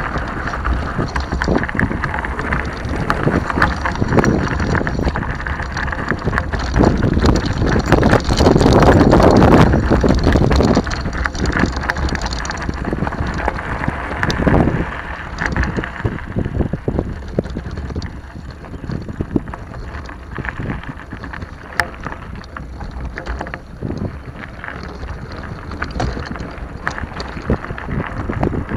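Wind noise on the microphone mixed with the crunch and rattle of a mountain bike rolling down a gravel dirt track. Loudest about a third of the way in, easing off in the second half.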